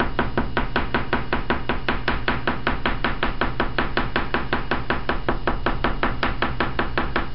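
Oil pastel stick tapped rapidly and steadily against paper on a tabletop, about six taps a second.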